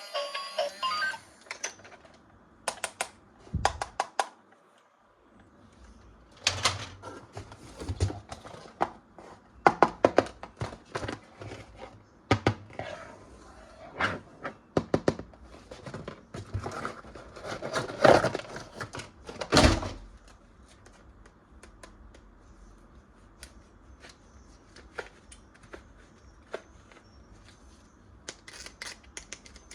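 Toys and their packaging handled close to the microphone: irregular clicks, taps and knocks, busiest between about six and twenty seconds in, then sparser.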